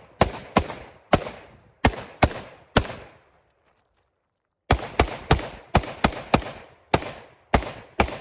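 Rifle shots fired in rapid strings, six in about three seconds, then a pause of nearly two seconds, then nine more in quick succession.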